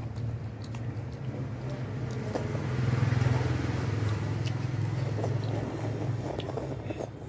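A motor vehicle going past, its engine and tyre noise swelling to loudest about three seconds in, then fading, over a steady low hum.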